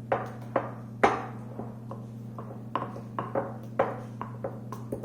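A metal spoon or fork knocking and scraping against a bowl while mashing and mixing, in irregular sharp clinks with a short ring, over a steady low hum.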